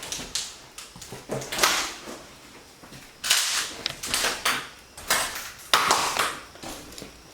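A series of irregular scuffing and rustling noises, about half a dozen in a few seconds.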